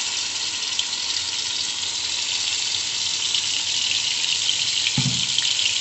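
Onion paste frying in hot oil in a steel karahi: a steady crackling sizzle. A brief low thump about five seconds in.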